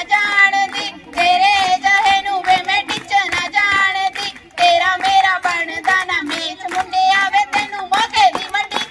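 Voices singing Punjabi boliyan, the folk couplets of giddha, to steady hand-clapping.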